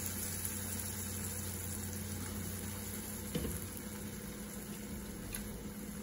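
Sausage and onion frying in a pot, a steady sizzle, as cooked white beans with their cooking liquid go into the hot fat, with one light knock about three and a half seconds in.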